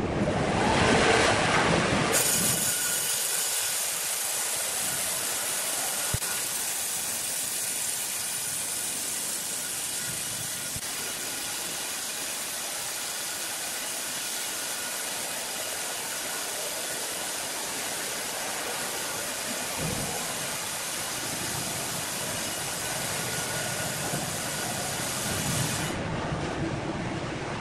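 Large horizontal band sawmill running, its blade cutting lengthwise through a big hardwood log: a steady hiss with a faint steady whine. The sound changes abruptly about two seconds in and again near the end.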